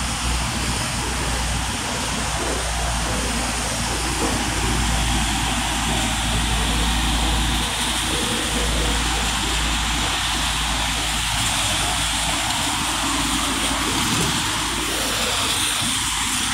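City traffic on a rain-wet street: tyres hissing on the wet road and vehicles passing, over a steady low rumble.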